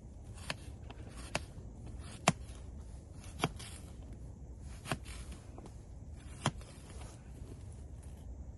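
Knife chopping half an onion: about six sharp knocks, spaced irregularly roughly a second apart, the loudest a little over two seconds in.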